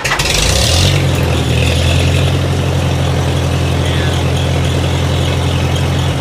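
The four-cylinder engine of a 1946 Farmall H tractor, just started and running steadily at idle. A brief harsher burst in the first second is the engine catching.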